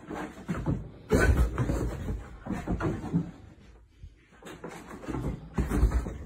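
A dog running around a bedroom: irregular thuds and paw scrabbling, with heavy thumps about a second in and again near the end, as it leaps onto the bed.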